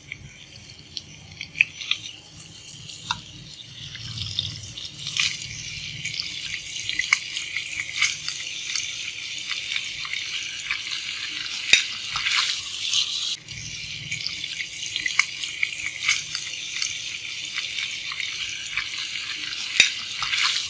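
Pieces of bain (spiny eel) fish frying in hot oil in a nonstick pan: a steady sizzle with frequent sharp crackles and pops, building up over the first few seconds.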